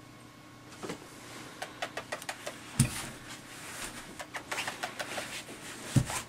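Empty plastic water bottles and a plastic bag crackling and clicking as a ferret plays among them, with two louder dull thumps, one about three seconds in and one near the end.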